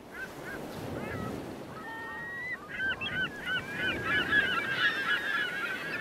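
A flock of crested terns calling: many short, harsh overlapping calls that thicken and grow louder from about halfway through, over the steady wash of surf.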